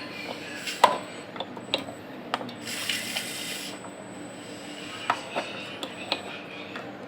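Repaired sewing machine motor running steadily, with about half a dozen irregular clicks and knocks as it is handled and shifted, and a short hiss about three seconds in.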